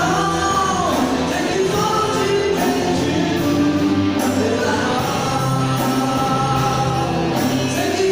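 Live Christian band playing a song: singing over keyboards, bass, drums and guitars, continuous and at full level.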